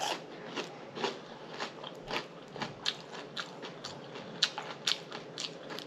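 A person chewing close to the microphone with open-mouthed lip smacking: a run of wet clicks and smacks, a few each second.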